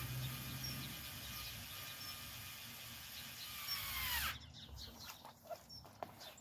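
Cordless drill-driver running steadily on the joint of a metal garden arch, its motor winding down and stopping about four seconds in. Faint bird chirps sound in the background.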